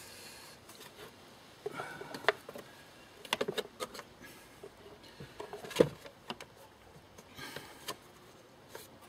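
Handling clicks and knocks of a round air filter element being lifted out of and set back into the plastic air box of a Citroën C15 engine. The knocks come scattered, the sharpest about six seconds in.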